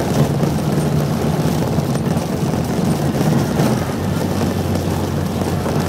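Classic Mini Clubman's 1275 engine driving in a low gear, running rough on fouling spark plugs; the revs ease off a little about halfway through.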